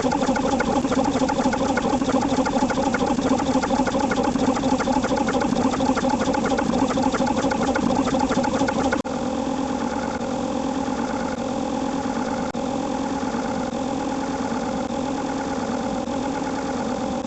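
A steady mechanical drone, like an engine idling, broken by an abrupt cut about nine seconds in and then carrying on a little quieter.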